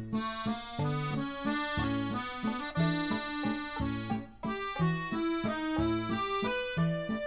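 Background music: a comical accordion solo in a sentimental Parisian style, a quick melody over a bouncing bass-and-chord accompaniment.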